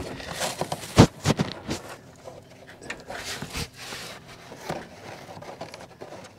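Hands pushing and routing a bundle of wiring in a car's convertible-top well: light rustling and handling noise, with a sharp knock about a second in and a few smaller clicks just after.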